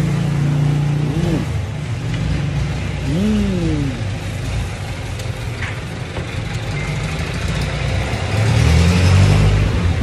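Motor vehicle engine noise from road traffic: a steady low hum that grows louder near the end.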